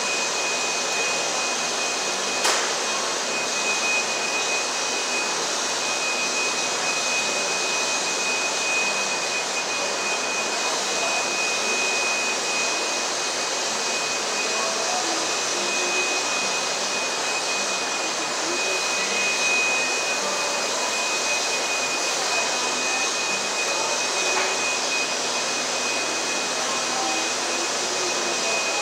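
Steady rushing machine-like noise with a thin, steady high whine running through it, and one sharp click a couple of seconds in.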